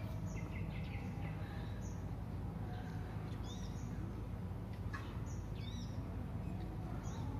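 Birds chirping in short, high calls about every second, over a steady low background rumble.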